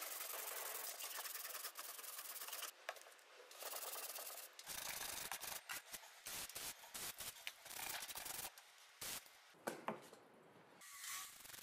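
A brush scrubbing an aluminium 3S-FE cam cover coated in pink soap paste: a rough, scratchy rubbing. It runs steadily at first and turns choppy, in short strokes with gaps, about halfway through.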